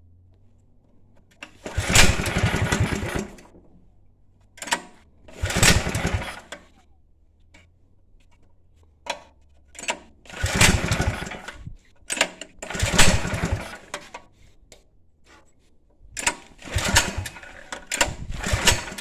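Predator 212 single-cylinder engine on a 1962 Wheel Horse 502 garden tractor being cranked over in about five short bursts of a second or two each, with brief knocks between them, without starting and running.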